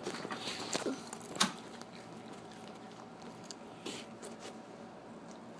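Faint clicks and rustling from a phone being handled close to its microphone, over quiet room tone, with one sharper click about a second and a half in.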